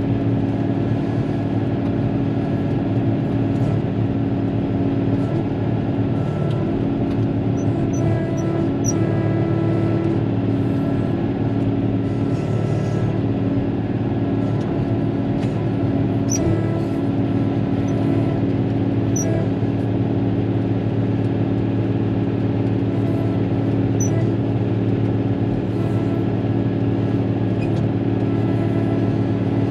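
Caterpillar motor grader's diesel engine running at a steady pace while grading, heard from inside the cab as an even, unchanging drone.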